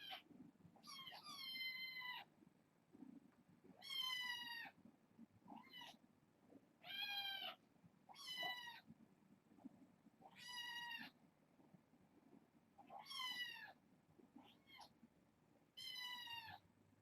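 Kitten meowing repeatedly, about ten high-pitched meows each falling slightly in pitch, spaced a second or two apart.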